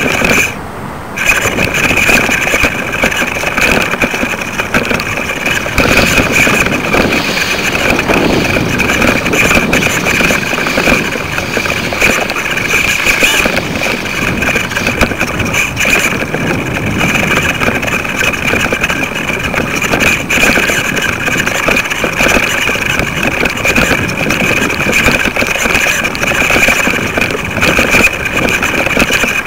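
Wind rushing over the microphone of a small camera hung from a kite line: a loud, steady rush with a high whine running through it, dipping briefly about a second in.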